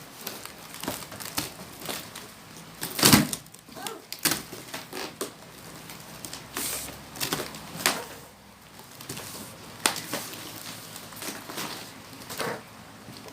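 Plastic wrapping and tape being pulled and torn off a packaged item: irregular crackling and rustling with sharp clicks and taps, the loudest about three seconds in.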